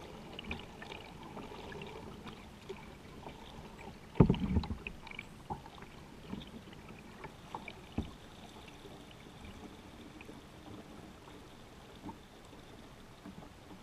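Kayak being paddled: water splashing and lapping at the hull with paddle strokes, with a loud cluster of knocks about four seconds in and a single sharp knock at about eight seconds.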